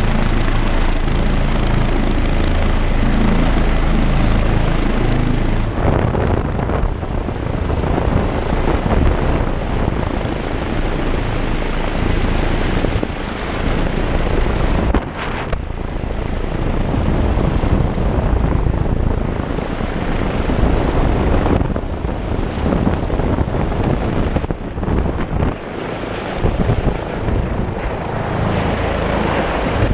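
Rescue helicopter's rotor and turbine running steadily at a hover, heard at close range. About six seconds in, the steady drone gives way to a rougher, gusting rush of rotor downwash and wind buffeting the microphone as the rescuer hangs on the hoist cable below the helicopter.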